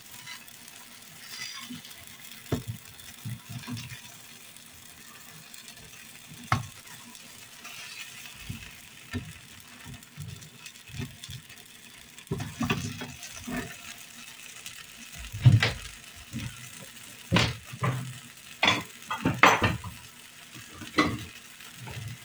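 Pancakes sizzling quietly in a non-stick multi-cup pancake pan over a gas burner. Scattered short knocks and scrapes of a silicone spatula against the pan come more often in the second half.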